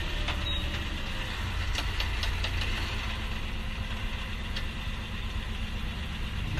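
Steady low rumble of a vehicle engine running in slow road traffic, with a few light clicks around two seconds in.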